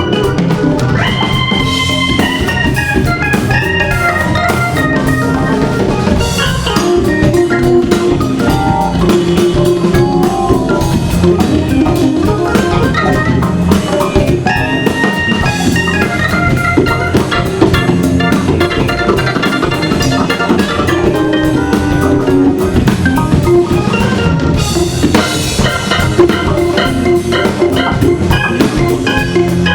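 Hammond organ playing a soul-jazz groove with a drum kit, sustained organ notes and quick runs over a steady beat.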